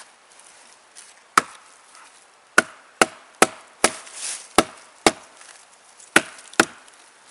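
Wooden baton striking the spine of a Bark River Sahara knife to drive its A2 steel blade into a sapling: nine sharp wooden knocks at an uneven pace.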